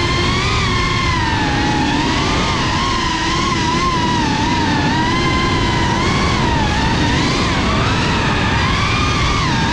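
GEPRC Cinelog FPV drone's brushless motors and propellers whining, the pitch wavering up and down as the throttle changes, over a steady rush of wind and prop wash.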